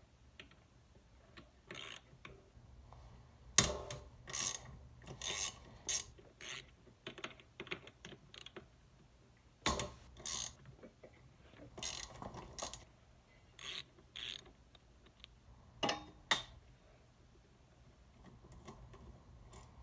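Hand socket ratchet wrench clicking in short runs with pauses between as bolts are loosened on a mini bike's small single-cylinder engine, the loudest run about three and a half seconds in.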